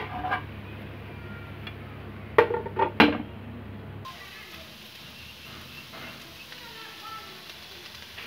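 A metal spatula knocking and scraping against a pan as okra and onions are stirred: a few sharp, ringing clanks in the first three seconds over a steady low hum. About four seconds in the sound cuts to a quieter stretch with only faint background noise.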